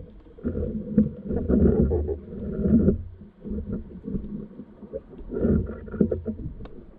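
Muffled underwater sound from a camera in its housing: low rumbling swells of water moving around it, with scattered faint clicks.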